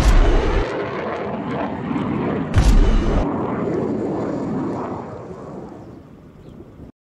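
Jet aircraft engines roaring, with two brief loud low surges near the start and about two and a half seconds in; the roar then fades steadily and cuts off abruptly near the end.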